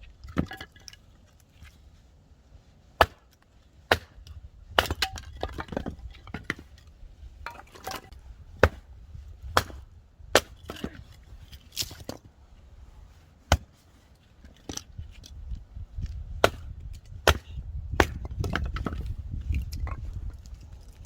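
Axe splitting firewood: a series of sharp, hard chops, roughly one a second.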